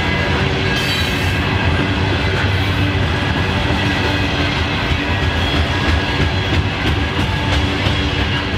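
Freight train rolling past, a steady rumble of cars and wheels on the rails with some clickety-clack.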